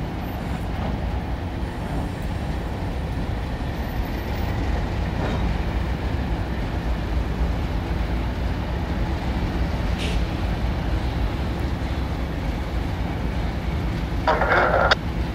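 Diesel locomotive running with a steady low rumble. Near the end there is a short burst of noise.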